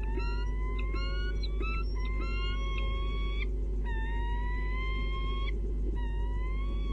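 Bird calling over and over: drawn-out, clear, squealing calls about a second and a half each, rising slightly in pitch, with short gaps between them and two voices overlapping near the start. A steady low electrical hum runs underneath.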